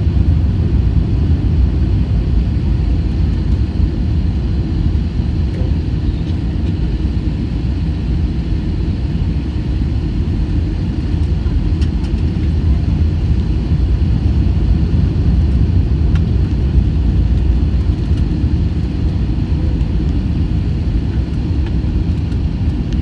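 Steady low rumble of an Airbus A320-family airliner's jet engines and airflow, heard inside the cabin by the window over the wing on final approach.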